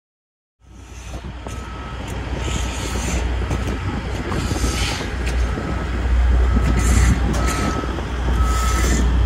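A construction vehicle's reversing alarm beeping about once a second, starting about half a second in, over a heavy low rumble.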